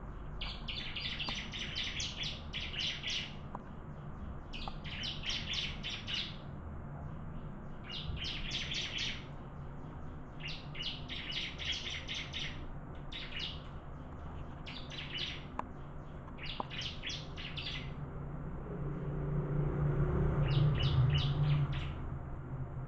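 Ciblek (bar-winged prinia) singing: repeated bouts of rapid, high chipping notes, each about a second long, coming every second or two. Near the end a low hum swells up and fades under the song.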